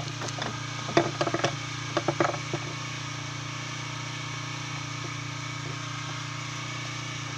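A boat engine idling with a steady low hum. A few light clicks and knocks come about one and two seconds in.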